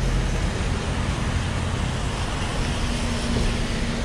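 Steady outdoor city traffic noise with a low rumble, and a faint engine hum joining about three seconds in.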